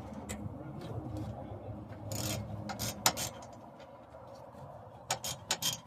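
Hand tools clicking and scraping on metal, a scattered series of sharp clicks that come quicker near the end, over a low steady rumble.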